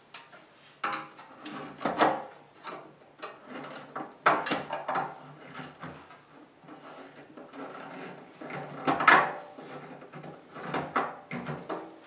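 Screwdriver working a screw into the sheet-metal furnace blower housing while the panel is pressed into line: irregular scraping and knocking of metal on metal, loudest about two, four and nine seconds in.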